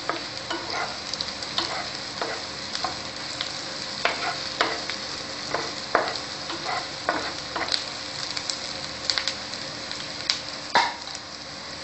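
Chopped onions sizzling in hot oil in a frying pan as they are fried until reddish-brown, with a spatula scraping and knocking against the pan as they are stirred. The sharpest scrape comes near the end.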